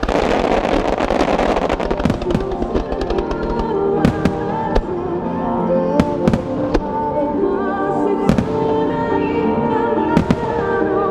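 Fireworks shells bursting with sharp bangs every second or two over music that accompanies the display. A dense crackling hiss from burning stars fills the first two seconds.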